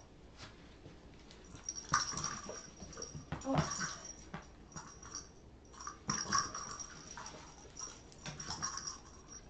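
Blue Weimaraner whining in several short high-pitched spells, with a few knocks from toys and the box.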